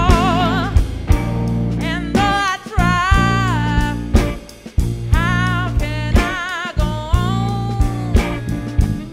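Live blues band playing, with electric guitars, bass guitar and drum kit behind a female singer holding long notes with a wavering vibrato. The band drops out briefly a few times, the longest break about four and a half seconds in.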